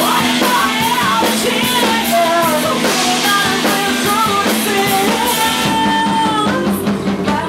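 A live rock band: a woman singing into a microphone over bass, guitar and drums.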